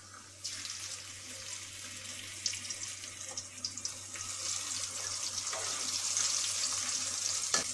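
Tapioca-floured mackerel frying in hot oil in a wok: a steady sizzling hiss with small crackles. It starts about half a second in as the fish goes into the oil and grows gradually louder.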